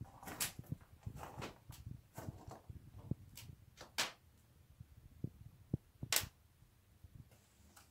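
Irregular clicks and knocks with some rustling in a small wooden room; the sharpest click comes about six seconds in.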